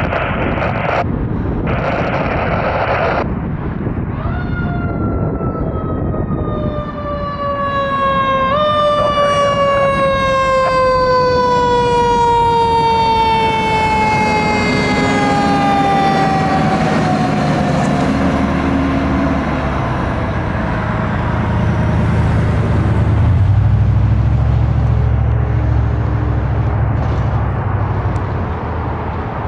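Spartan fire engine's mechanical siren winding down. It comes in about four seconds in and falls slowly in pitch over some fifteen seconds, with one brief spin back up early on. In the last third the truck's diesel engine rumbles deeply as it passes close and pulls away.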